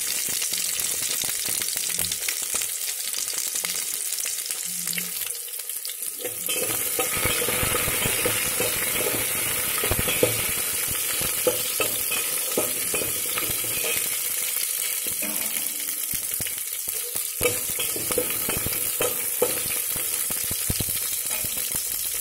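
Hot oil sizzling as shallots, green and dried red chillies, crushed ginger-garlic and curry leaves fry in a steel pot for a dal tempering, with a steel spatula stirring and scraping against the pot in scattered clicks.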